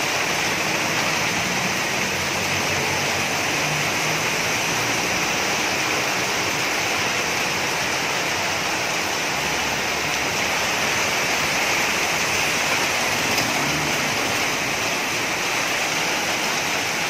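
Torrential rain pouring down onto a paved street, a steady, dense hiss of heavy rain.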